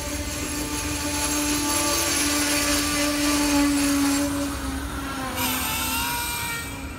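Amtrak Superliner bilevel passenger cars rolling past, their steel wheels squealing on the rails in steady held tones over a rolling hiss. The squeal tones shift in pitch a little after about five seconds, and the sound eases near the end.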